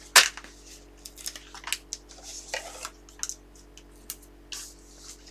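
Hands handling paper and a plastic packet of Stampin' Dimensionals adhesive foam dots on a tabletop, to mount a paper cut-out in 3D: a sharp tap just after the start, then scattered light clicks and short rustles.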